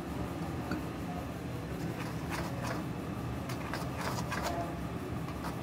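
Spoon stirring gram flour and water into pakora batter in a steel bowl, with repeated scraping strokes against the bowl from about two seconds in, over a steady low hum.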